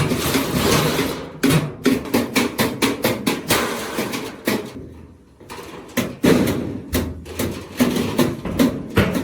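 Hand hammer blows on oil-drum sheet steel, struck repeatedly at an uneven pace of a few blows a second, with a brief pause about five seconds in.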